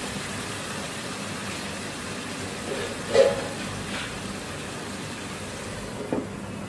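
Steady hiss of a pan of potato and pea curry cooking over a gas burner. A lid is set on the pan, with a sharp clink a little past three seconds in and lighter knocks at about four seconds and near the end.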